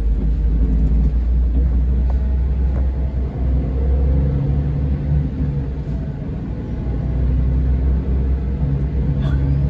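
Scania K410 coach engine, a 13-litre inline six, running with a steady deep rumble.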